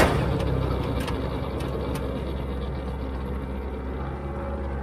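A single sharp bang right at the start, typical of the snowblower's shear bolt snapping under a load of wet snow, followed by the New Holland L85 tractor's diesel engine running steadily.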